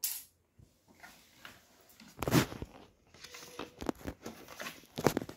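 Handling noise from a soft-sided fabric suitcase being turned over on a hard floor: a soft thump about two seconds in, then several light clicks and taps near the end.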